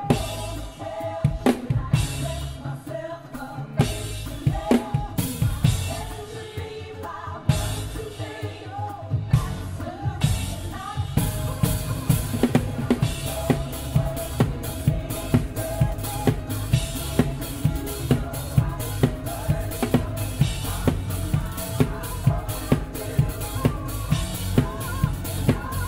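Drum kit played live with a band, heard close up. For the first ten seconds or so it plays scattered hits and fills under the band; from about eleven seconds in it settles into a steady driving beat on bass drum and snare.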